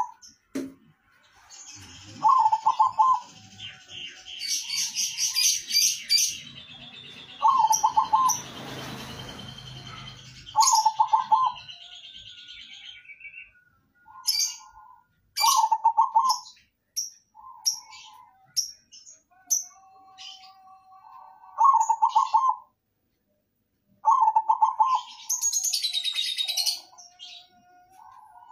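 Caged zebra dove (perkutut) cooing its song: about six short pulsed phrases spaced a few seconds apart. Higher, brief chirps from other small birds sound between and over the phrases, with a short rustling noise a third of the way in.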